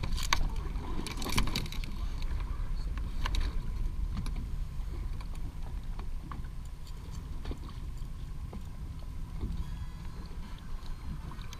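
Handling noise from a landing net being worked at the boat's side: sharp clicks and knocks of the net's hoop and mesh, several in the first second and a half, a few more later, over a steady low rumble.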